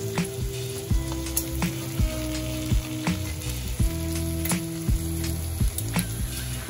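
Shell macaroni, chicken and vegetables sizzling in a hot stainless-steel pot, dry before the stock goes in. Background music with a steady beat and sustained notes plays over it.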